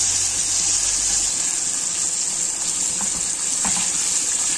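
Chicken wings deep-frying in hot oil in a wok: a steady sizzle. A couple of light knocks in the second half come as a wooden chopstick pokes the wings.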